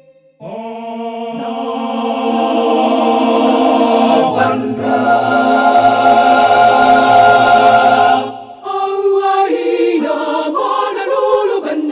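High-school choir singing: a held chord enters about half a second in and swells for several seconds, breaks off near eight seconds, then gives way to shorter, moving chords.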